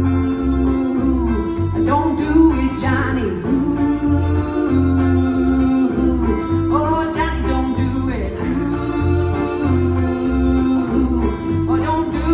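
Live acoustic music: ukulele and bass playing a country-style song, with the bass pulsing a steady beat under a melody of long held notes and short rising phrases, and no lyrics sung.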